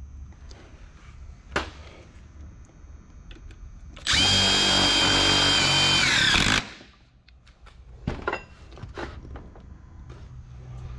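Makita cordless impact driver driving a screw through the heater's sheet-metal housing into a wood frame for about two and a half seconds, its motor pitch dropping as it stops. A few short knocks before and after.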